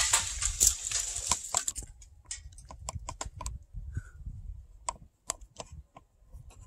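A rush of noise fades out over the first two seconds, followed by a dozen or so sharp, irregular clicks and taps.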